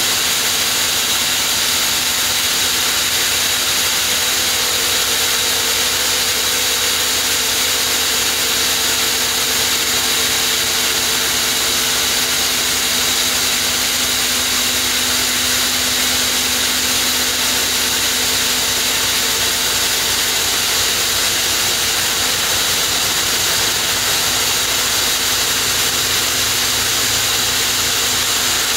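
Fickert 3000 large diamond disc saw cutting through a granite block: a loud, steady hissing grind with a few constant humming tones underneath.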